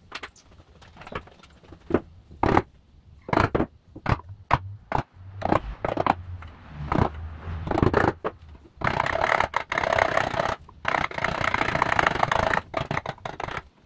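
Hand plane shaving the edge of a wooden box side: a run of short scraping strokes, then longer, nearly continuous strokes in the second half.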